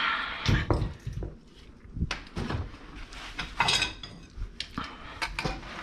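Metal tools and parts clinking and knocking in a series of short, irregular clanks as they are handled.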